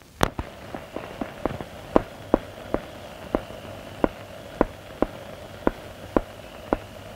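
Footsteps: a run of sharp clicks, quick at first, then settling to an even walking pace of about two steps a second, over a faint steady hum.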